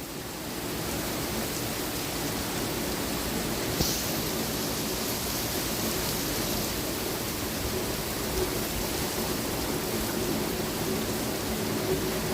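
Strong thunderstorm wind blowing steadily through trees, a continuous rushing noise that swells slightly in the first second.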